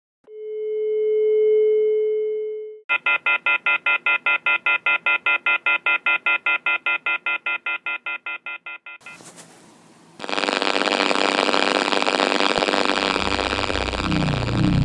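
A steady telephone-style tone that swells and fades over about two and a half seconds. It is followed by a rapid, evenly pulsing telephone ring that dies away over about six seconds. From about ten seconds in, a loud, harsh noise takes over, with a low rumble coming in near the end.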